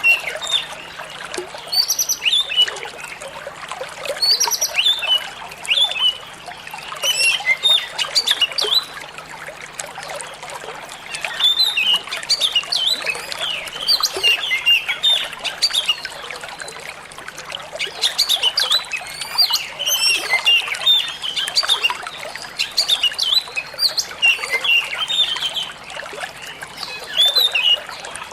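Oriental magpie-robin singing in varied phrases of chirps and whistles, a few seconds each with short pauses between, over steadily trickling running water.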